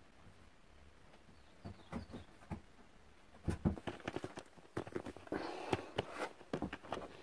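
Scrapes, knocks and clicks of a person crawling through a narrow rock passage, boots, clothing and gear scuffing and knocking against the stone. A few scattered knocks come about two seconds in, then a dense flurry of knocks and scuffs through the second half.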